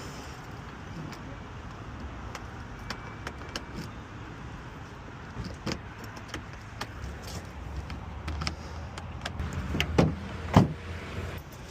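Scattered small clicks and light knocks of handling around a vehicle, with two louder knocks about ten seconds in, over a low steady rumble.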